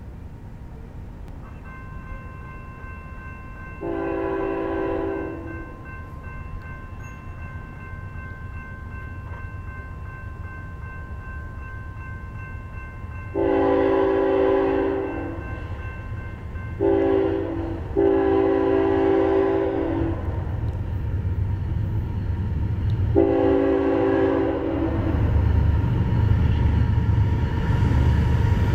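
Horn of an approaching CSX ET44AH diesel locomotive leading an intermodal freight train. It gives one blast about four seconds in, then from about halfway a long, a short and two more long blasts. The low rumble of the train grows louder toward the end.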